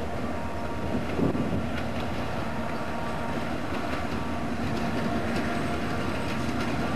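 Diesel locomotives hauling a freight train at low speed, their engines running with a steady drone. Wheels give scattered clicks as they pass over rail joints and points.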